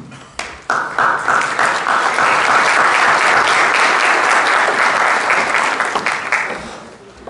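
Audience applauding, the clapping building about a second in, holding steady, then dying away near the end.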